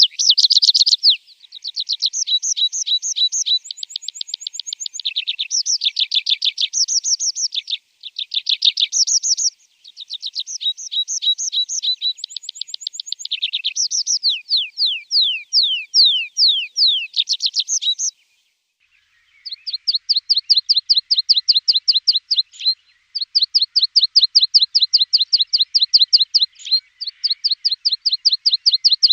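Javan bush lark (branjangan) singing: fast chattering trills and rapid strings of sharp, high notes in changing phrases. The song breaks off briefly a little past halfway, then resumes as long runs of quick repeated downward-sweeping notes.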